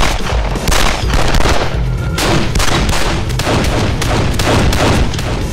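Gunfire in a film shootout, many shots in quick succession, over steady background music.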